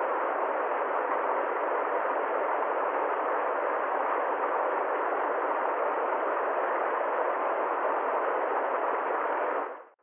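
Small waterfall cascading over rocks into a pool: a steady rushing of water that fades out just before the end.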